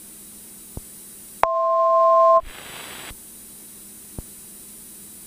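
A two-note electronic alert tone from the cockpit avionics in the headset audio, steady in pitch, about a second long and growing a little louder before it cuts off. Under it runs the low, steady hum of the cabin intercom feed, with a faint click before the tone and another near the end.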